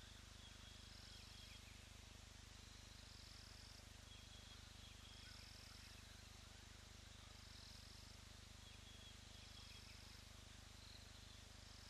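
Faint insect chirring: short high trills repeating about every two seconds over a low steady hiss.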